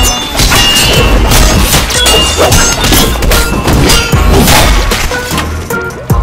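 Film teaser soundtrack: a loud song with heavy drum hits and crashing impacts, easing off briefly near the end.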